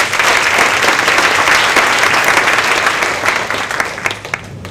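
Audience applauding, a dense clapping that dies away near the end.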